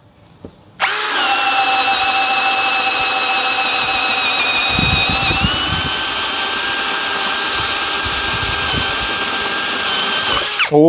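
Yasuka YID318 cordless brushless drill boring a 25 mm spade bit into a meranti board. The motor starts about a second in with a steady high whine, its pitch stepping up slightly about halfway. The bit chatters in the wood through the middle stretch, and the drill stops just before the end. It bores through without stalling.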